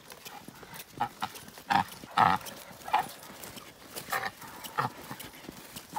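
A leashed hunting dog panting and huffing close by, mixed with hurried footsteps on a dirt woodland trail: a string of short, irregular puffs and steps about one or two a second, loudest around two seconds in.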